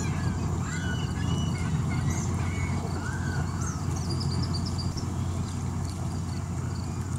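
Many birds calling, with short chirps and squawks scattered throughout, over a steady low rumble.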